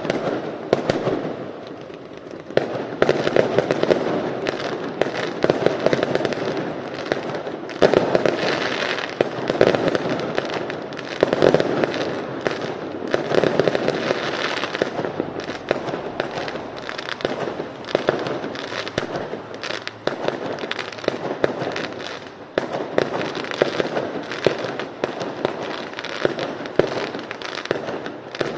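Fireworks going off in rapid succession: a dense, continuous crackle of many sharp bangs and pops.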